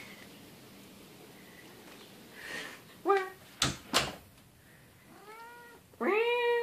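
Black domestic cat meowing: a short meow about halfway through, a fainter meow, then a louder, drawn-out meow near the end. Two sharp knocks come just after the first meow.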